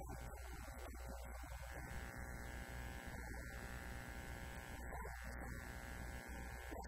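Steady electrical hum and buzz, a low drone with a stack of higher steady tones over it, and only faint, indistinct sounds beneath.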